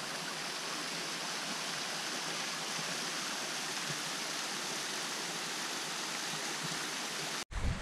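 Small waterfall splashing down a rock face onto rocks and into a shallow pool, a steady even rush of water. It cuts off abruptly near the end.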